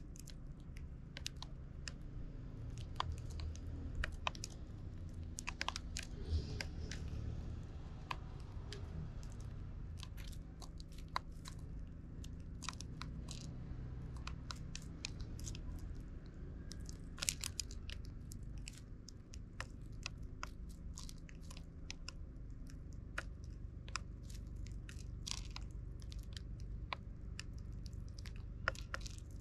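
Eurasian tree sparrows pecking seed from a plastic feeding tray close to the microphone: a run of irregular sharp clicks and crunches as beaks strike the tray and crack the seeds, sometimes in quick clusters, over a low steady rumble.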